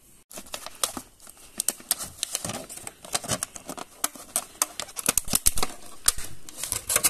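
Thin clear-plastic clamshell pastry box crackling and clicking as it is handled by hand and its lid is pried open. The sound is an irregular run of sharp clicks.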